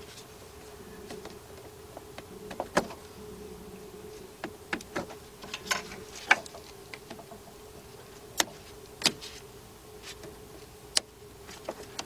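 Irregular small clicks and taps from gloved hands handling a cut battery cable and its stripped insulation, over a faint steady hum.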